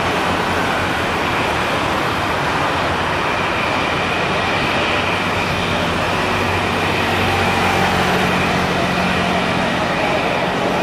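Airbus A320 jet engines running near idle as the airliner rolls slowly along the runway: a steady rushing noise with a faint high whine and a low hum underneath.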